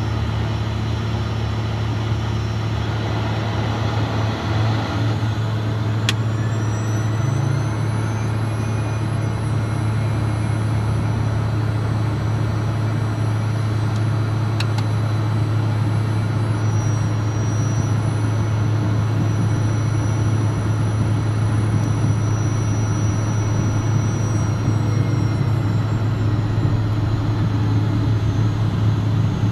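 Steady cockpit drone of a Cessna Citation Mustang's twin Pratt & Whitney PW615F turbofans at low thrust. A thin high turbine whine rises a few seconds in and falls back near the end. There are two sharp clicks along the way.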